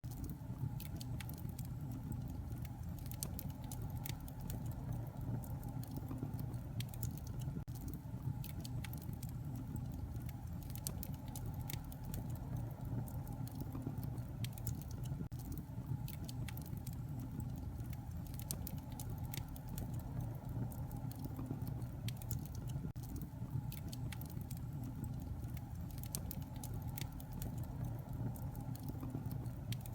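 Wood fire crackling in a fireplace: frequent irregular pops and snaps over a steady low rumble.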